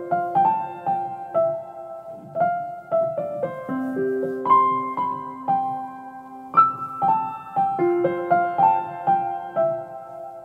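Background music: a piano melody of single struck notes, each ringing briefly before the next.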